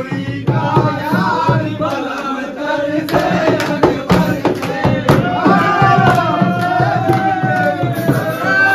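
Background music: a song with a wavering sung melody over drums.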